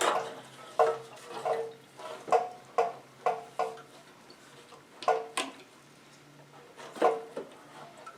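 A series of sharp metallic clinks and taps, a dozen or so at uneven intervals, each ringing briefly at the same pitch, as tools and metal parts are handled during mower disassembly.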